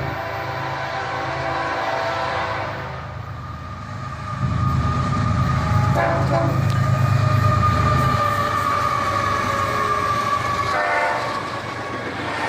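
Diesel freight locomotives, an ES44AH and a GP38-2, passing with the air horn sounding. A held horn chord comes first, then the heavy low rumble of the engines going by, with short horn blasts about six seconds in and again near the end.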